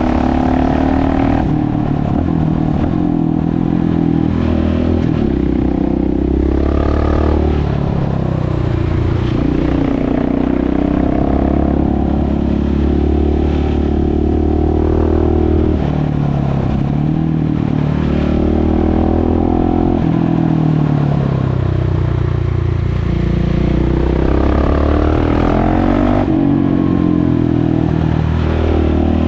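KTM 690 SMC R's single-cylinder four-stroke engine, heard onboard while riding, its exhaust open with the dB-killer removed. The revs rise and fall several times as the throttle is opened and closed.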